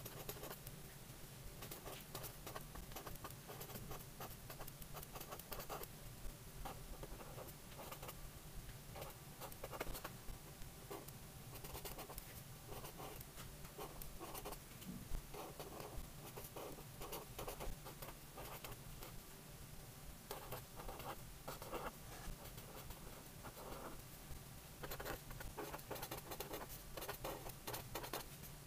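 Felt-tip marker writing on grid paper: a fast, irregular run of short scratchy pen strokes, letter after letter, with brief pauses between words.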